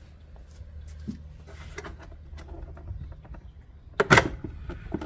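Hard plastic engine-bay parts being handled by hand: scattered small clicks and knocks, then a louder clatter about four seconds in.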